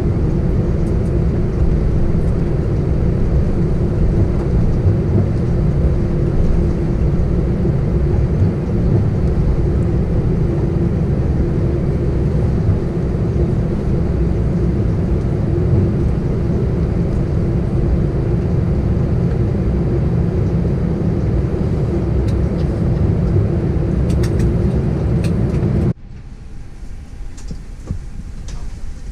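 Airbus A319 cabin noise while taxiing after landing: a steady, loud rumble of the jet engines at idle and the rolling aircraft, with a steady hum. Near the end it cuts off suddenly to a much quieter cabin.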